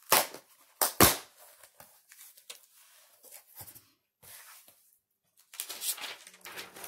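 A package being torn open by hand: two loud ripping tears about a second apart, then faint scattered handling, then a burst of paper rustling near the end.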